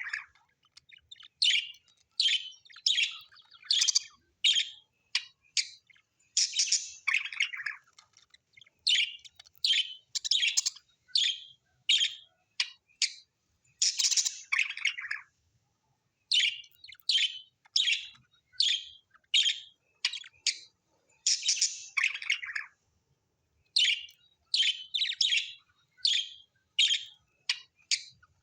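Small birds chirping in a rapid run of short, high calls, a few each second. Every several seconds a longer call falls in pitch.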